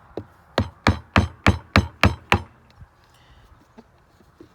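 Hammer blows, about eight in quick succession at roughly three a second, driving a tight-fitting cut disc into the plucker drum, then they stop.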